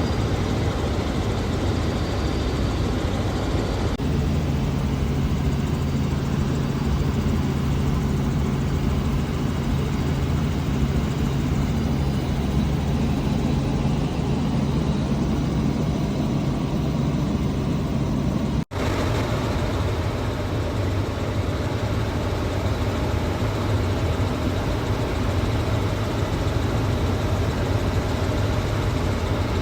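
Helicopter in flight, heard from inside the cabin: a steady low engine and rotor drone, with a brief dropout about two-thirds of the way through.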